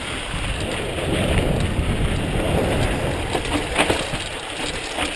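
Mountain bike rolling down a rocky dirt trail: a steady rush of knobby tyres on sand and gravel, with a few light knocks from the bike over rocks in the second half.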